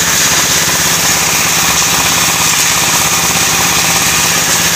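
One-bagger concrete mixer's engine running steadily with a rapid, even chugging.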